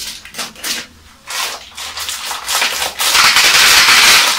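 Plastic packaging rustling and crinkling as it is handled and squeezed, then about three seconds in a loud, steady sizzling starts as chorizo goes into a hot frying pan.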